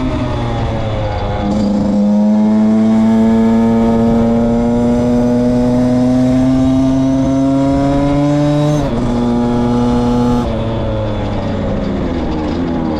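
Beta RR 50cc two-stroke engine running under way on the road. Its pitch steps down about a second and a half in as it shifts up, then climbs slowly for several seconds as it pulls. It steps down again near nine seconds and once more a little after ten seconds.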